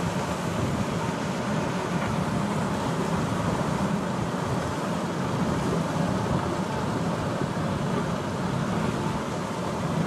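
Large wildebeest herd crossing a river, the mass of animals churning through the water in one steady, unbroken rush of noise.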